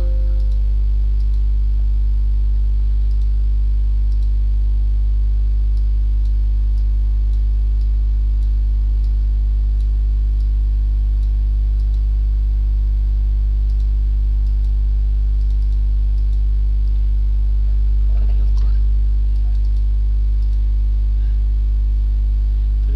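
Steady low electrical mains hum picked up by the recording microphone, the loudest sound throughout, with faint computer mouse and keyboard clicks now and then.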